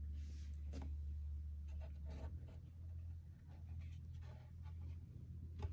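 Thick, stiff pages of a large-format picture atlas being handled and turned over, with soft scraping rustles and a sharper tap near the end, over a steady low hum.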